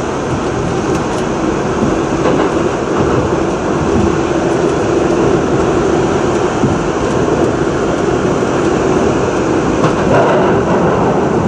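R62A subway train running at speed through a tunnel: a steady rumble of wheels on the rails, echoing off the tunnel walls, with a hum that holds one pitch for a few seconds in the middle.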